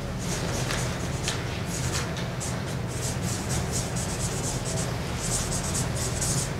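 Marker pen writing on a flip-chart pad: a run of short, squeaky scratching strokes as the words are written out.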